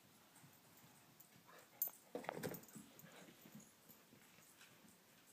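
Quiet room with a single click a little under two seconds in, followed by a short, soft dog whimper.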